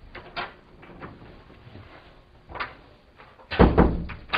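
Exam-room door being opened and shut: a few soft knocks, then a louder thud and click as the door closes and latches about three and a half seconds in, with another knock at the end.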